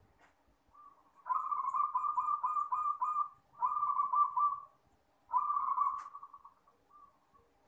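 Zebra dove (perkutut) cooing: three rapid, rolling coo phrases, the first about two seconds long and the next two about a second each, with a few short soft notes before and after.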